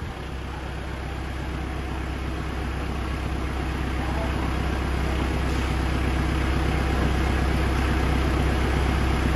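Tractor diesel engine idling steadily, its low hum growing slowly louder.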